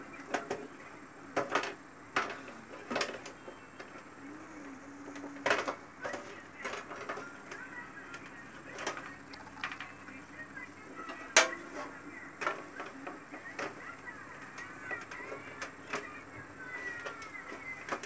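Irregular sharp clicks and crackles of a refrigerator evaporator plate being handled and bent by hand, with one louder crack about eleven seconds in.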